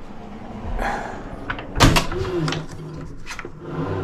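Wooden roof skylight being pushed open by hand: clunks and knocks of the sash and its fittings, the sharpest about two seconds in, with a short creak just after.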